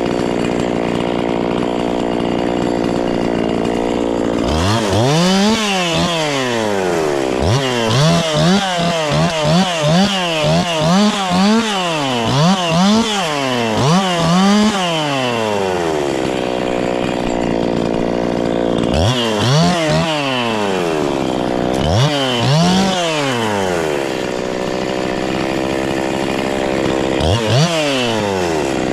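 Gasoline chainsaw idling, then revved in a series of quick throttle blips, the engine pitch jumping up and falling back each time, settling back to idle twice between runs of revving.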